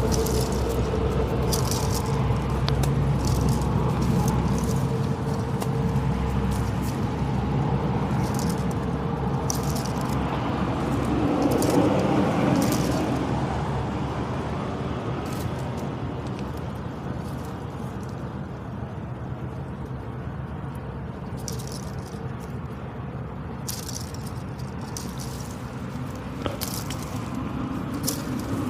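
A water buffalo flapping its ears, the ears slapping against its head in irregular sharp clicks and knocks, sometimes in quick runs and sometimes with gaps of a few seconds.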